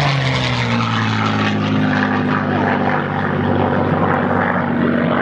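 North American Harvard's Pratt & Whitney R-1340 Wasp radial engine and propeller running in flight. The pitch drops slightly at the start, then holds steady.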